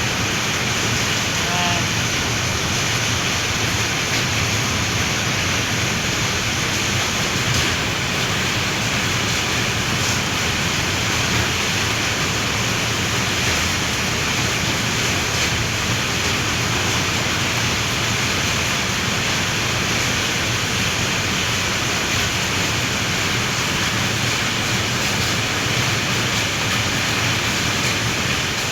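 Very heavy rain pouring down steadily, a dense, even hiss of rainfall.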